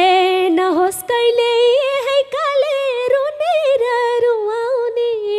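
A woman singing a Nepali dohori folk line unaccompanied: one voice into a microphone, held notes with wavering, ornamented pitch and short breaks for breath about a second in and again near two seconds.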